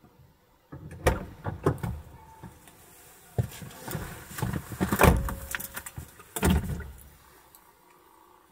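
A person moving about in a car's driver's seat: a string of irregular knocks, thumps and rustles. The two loudest thuds come about five and six and a half seconds in, then it settles down.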